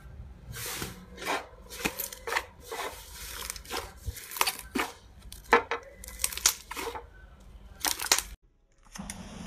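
Slime being squeezed and stretched by hand, giving irregular crackles and sharp pops. The sound breaks off briefly near the end.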